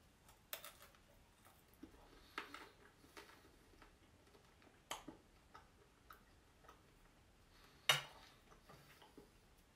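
Quiet eating sounds: scattered wet clicks of chewing roast pork and fries, with a sharp clink of a table knife on the china plate a little before the end.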